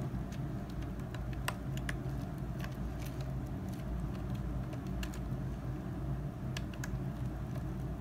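Scattered light clicks and ticks of plastic wire connectors and cables being handled and pressed into place inside a hoverboard's open shell, over a steady low hum.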